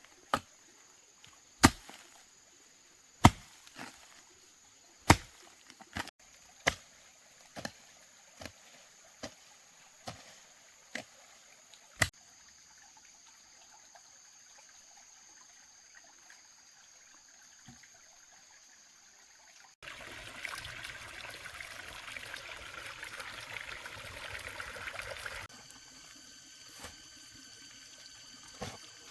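A series of about a dozen sharp knocks or chops, loudest at first and fading, followed after a pause by water pouring or splashing for about five seconds.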